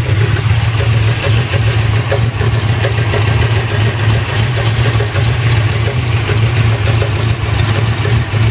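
Chevy small-block V8, bored .060 over, idling steadily with a dragging, clunking noise from below. The owner suspects the flex plate or torque converter; the rod and main bearings look fine, and the noise stayed after new cam, lifters, oil pump and converter.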